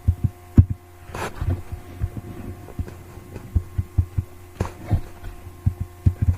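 Computer keyboard and mouse being tapped and clicked, heard as irregular soft low thumps with a few sharper clicks, over a steady electrical hum.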